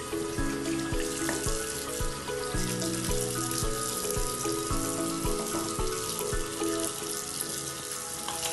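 Tap water running into a washbasin while soapy hands are rubbed together under it, with background music that has a steady beat.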